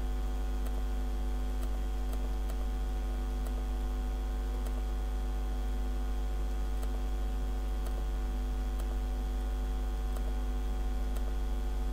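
Steady electrical mains hum with a stack of buzzing overtones, with faint ticks about once a second.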